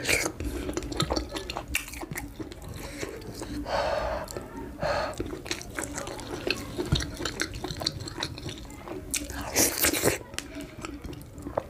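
Close-miked wet chewing and mouth smacking of someone eating amala with slimy ewedu and gbegiri soups: many small sticky clicks, with louder wet bursts about four seconds in and again near ten seconds.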